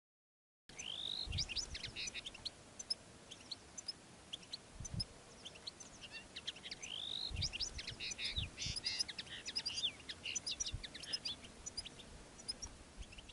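Male European goldfinch's courtship song: a fast, continuous run of bright twittering and chirping notes with a few rising-and-falling slurred whistles, starting about half a second in. A few low thumps come through underneath.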